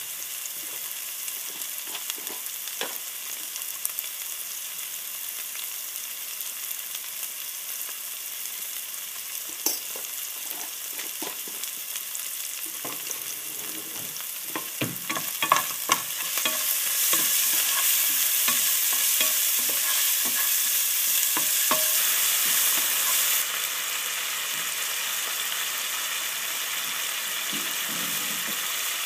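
Chopped onion, tomato and spices sizzling in oil in a non-stick frying pan. About halfway through, a spatula scrapes and knocks against the pan a number of times as the mixture is stirred, and the sizzle then grows louder for several seconds before settling to a steady hiss.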